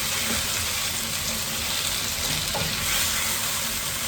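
Tomatoes seasoned with stock cubes and salt sizzling in a cooking pan, with a steady frying hiss.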